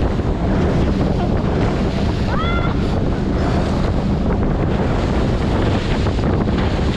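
Heavy wind buffeting on the microphone and rushing water as an inflatable towed ride speeds across the sea through its spray. A short rising cry cuts through about two and a half seconds in.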